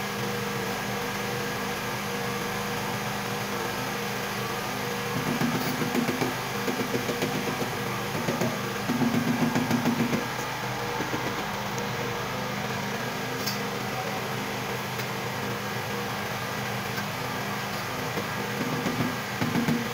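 Rubber mallet tapping a dark stone strip into place in a tiled wall niche, in short bursts of rapid taps: twice in the first half and again near the end. Under the taps runs a steady mechanical hum.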